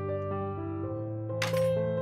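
Soft background piano music, with one short crunch about a second and a half in as a cleaver blade smashes a garlic clove flat on a wooden chopping board.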